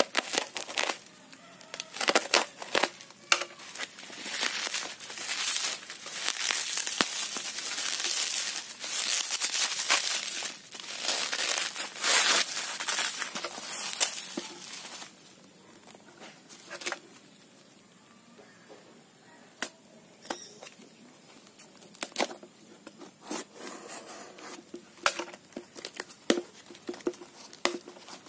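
Plastic bubble wrap and packing film crinkling and tearing as a parcel is cut open with a utility knife and unwrapped, dense and loud for about the first half. After that, quieter rustling and scattered light clicks as the cardboard box inside is opened.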